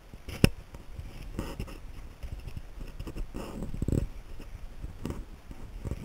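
Close handling noise as the craft kit's cardboard box and paper instruction sheet are moved about: a sharp click about half a second in, then rustling and a few dull bumps.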